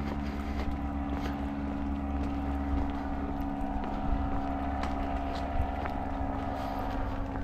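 A steady motor hum holding an even pitch, with wind rumbling on the microphone and the light clicks of footsteps.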